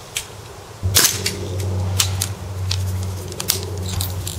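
A gas-blowback airsoft rifle (KWA LM4) fires one sharp shot about a second in, followed by a few lighter clicks and rattles. A steady low drone runs underneath from that point on.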